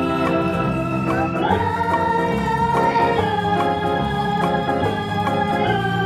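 Background music of long held, organ-like chords that change every second or two.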